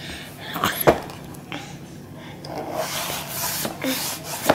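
Baby drinking milk from a plastic baby bottle: sucking and breathy noises with a few short vocal sounds, and a couple of sharp clicks about a second in.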